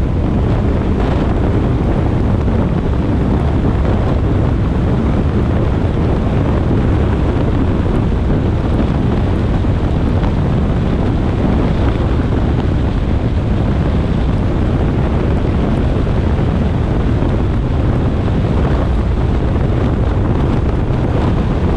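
Steady rumble and hiss of a car driving at expressway speed on a rain-wet road, tyre and wind noise, with wind on the microphone.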